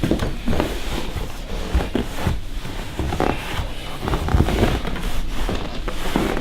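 Irregular rubbing, scraping and knocking from hands working at a leather home-theater recliner, where paraffin wax is being rubbed into the gap between the reclining back and the side to stop a leather-on-leather rub.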